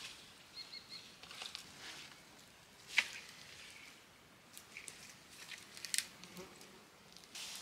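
Pine boughs rustling and twigs crackling as needle-covered branches are handled and laid onto a wooden lean-to frame, with a sharp crack about three seconds in and another near six seconds.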